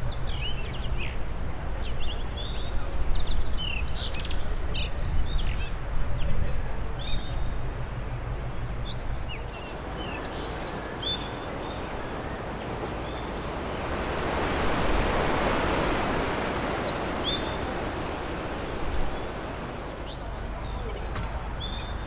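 Male blue rock thrush and meadow bunting singing, with quick runs of high whistled notes through the first several seconds and shorter phrases in the middle and near the end. Strong wind rumbles on the microphone throughout, with a louder rush of noise in the middle.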